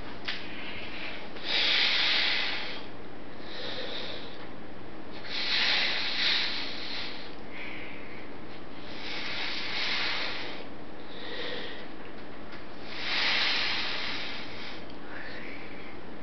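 A person making loud, harsh, hissing breaths through a wide-open mouth. A long breath comes about every four seconds, with a shorter, weaker one between each pair.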